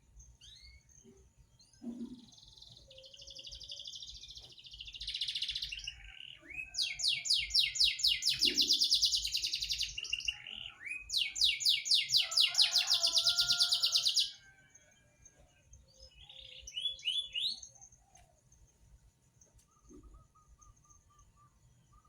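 A caged songbird kept as a 'masteran' song tutor singing: a warbling phrase, then two long, fast trills of rapidly repeated high notes, the loudest part, followed by a few short scattered calls near the end.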